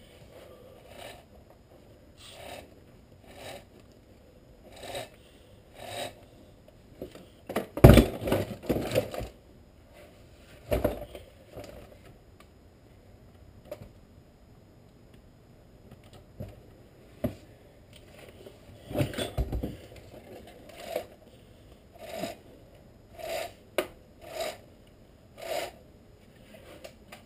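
Metal chainsaw parts and hand tools being handled on a workbench while the bar and chain are refitted: a series of short knocks, clicks and scrapes about once a second. The louder clattering clusters come about a quarter of the way in and again past the middle.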